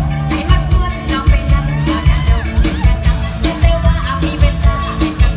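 Live Isan band music played loud through a PA, with a strong bass and a steady, fast drum beat, and a woman singing a melody with sliding, bending notes over it.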